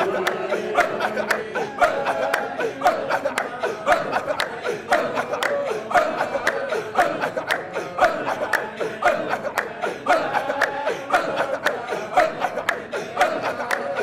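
A group of men chanting a Sufi dhikr in rhythm, short pulsing vocal phrases repeated about once a second, over a steady percussion beat of about three strokes a second.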